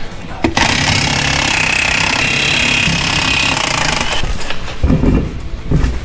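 Air impact wrench hammering steadily for about three and a half seconds while it spins off a skid steer's wheel lug nuts, followed by a few low knocks.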